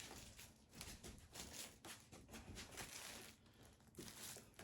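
Faint rustling and crinkling of firecracker packaging being handled, in a series of short, irregular scuffs.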